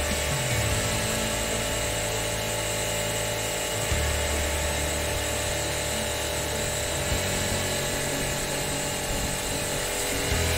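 A motor-driven machine running steadily, with a constant hum, and background music underneath.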